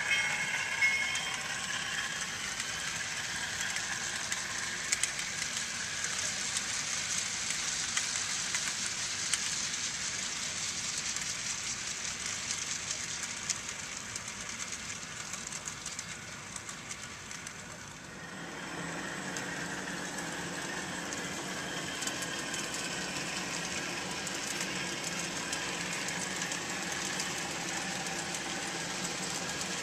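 Model trains running on a layout: a steady rolling clatter of small wheels on track with motor hum. About two-thirds of the way through, it fades briefly and gives way to a lower, steadier hum with a droning pitch.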